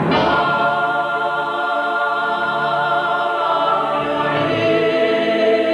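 Choir singing, voices holding long sustained notes with a slight vibrato.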